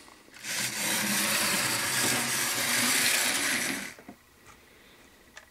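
Bachmann 4-8-4 model steam locomotive's small electric motor and gears running under power: a loud, steady whir with a low hum. It starts about half a second in and cuts off just before four seconds, followed by a few faint clicks.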